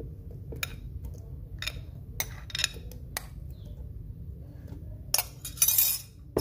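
A spoon clinking against a glass bowl and blender jug as mango cubes are scooped in: a handful of separate clinks, roughly one every half second to a second. A louder rustling scrape comes about five seconds in, over a steady low hum.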